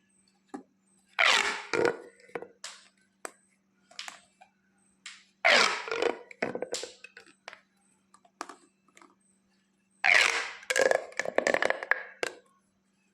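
Plastic pop tubes being stretched and squeezed: three bursts of rapid popping and crackling, about four seconds apart, with scattered single clicks between them.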